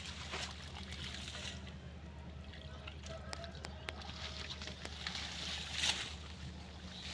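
Shallow muddy water sloshing and splashing as hands grope through it for fish, with a louder splash about six seconds in.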